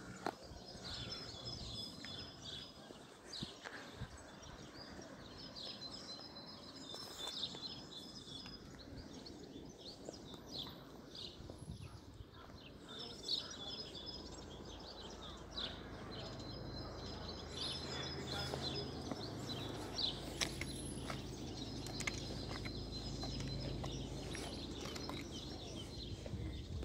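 Outdoor ambience with a small bird singing in repeated short, high chirping phrases and a few scattered clicks. A low steady hum comes in a little past halfway.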